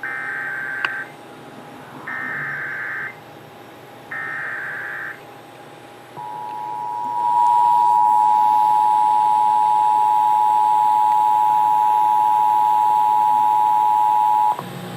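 Emergency Alert System activation on broadcast radio: three short, roughly one-second bursts of buzzing SAME header data tones about a second apart, then the steady two-pitch EAS attention signal, which comes in about six seconds in and holds for about eight seconds. The tones announce a National Weather Service severe thunderstorm warning.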